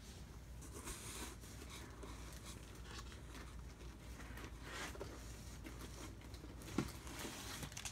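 Faint rustling and scraping of packing material and plastic-cased graded comics being lifted out of a cardboard shipping box, with a light knock about seven seconds in.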